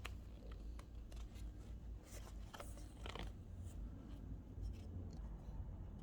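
Faint handling sounds of hands working on the jeans and metal zipper: soft fabric rustling with a few small clicks.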